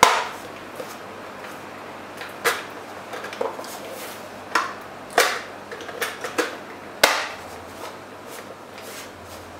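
Plastic front cover of a Buffalo DriveStation Duo hard-drive enclosure being pushed and snapped back into place: irregular sharp clicks and knocks, about ten of them, the loudest at the start and about seven seconds in. The cover is hard to close, having no easy latch.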